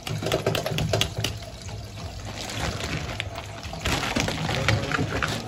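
Tap water running and pouring into a plastic bowl in a stainless steel kitchen sink, with the crinkling and crackling of a wet plastic bag being handled.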